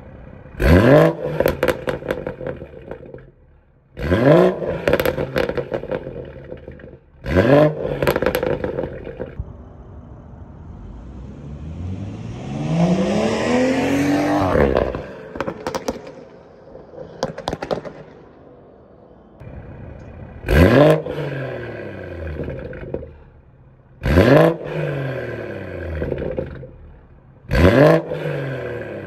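BMW M240i's turbocharged 3.0-litre inline-six (B58) through a downpipe, resonator delete and stock rear muffler, blipped hard several times. Each rev climbs sharply and drops back with crackling burbles on the overrun. Midway comes a longer pull whose pitch rises and then falls away, and the last few blips fall back with less crackle.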